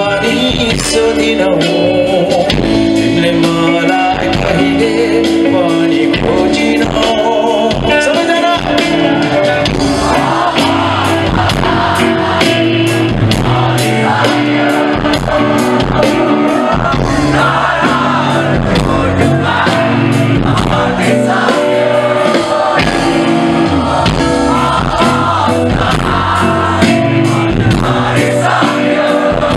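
A rock band playing live, with a man singing lead vocals into a microphone over drums and bass guitar.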